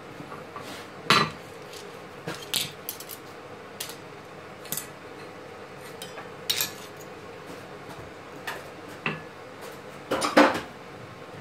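Steel smithing tools clinking against a steel anvil as tongs and a hammer are handled and a red-hot steel knife blank is laid on the anvil face: scattered, irregular metallic clinks rather than steady hammering, the loudest a quick cluster of several near the end. A steady hum runs beneath.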